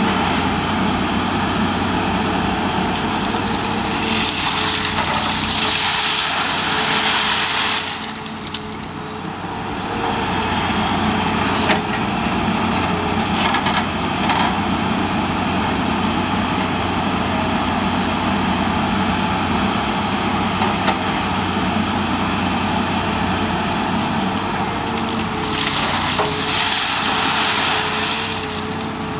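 Caterpillar 330C long-front excavator's diesel engine running steadily under load while it works its boom. Twice a bucket load of gravel pours out in a long hissing rush, about four seconds in and again near the end.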